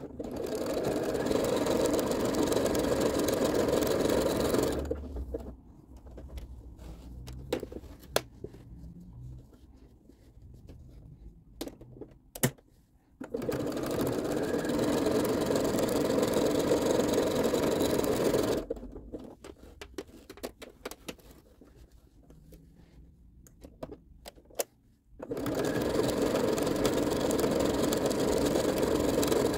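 Janome sewing machine stitching in three steady runs of about five seconds each, sewing a patchwork strip onto a towel. In the pauses between runs there is quieter handling noise with a few sharp clicks.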